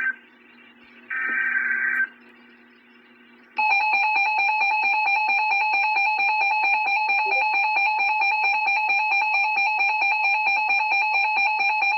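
Emergency Alert System broadcast: two brief screechy SAME data bursts in the first two seconds, then after a short pause the steady two-tone EAS attention signal sounding for about nine seconds, announcing the tornado warning that follows.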